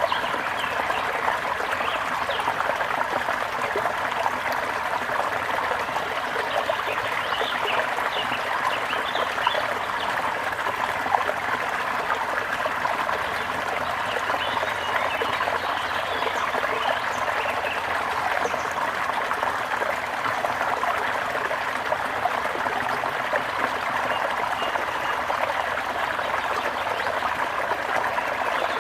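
Steady trickling and splashing of running water, with short bird chirps scattered over it.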